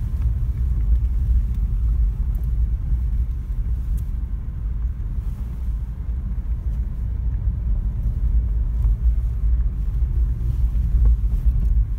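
Steady low rumble of a car on the move, engine and road noise heard from the moving car.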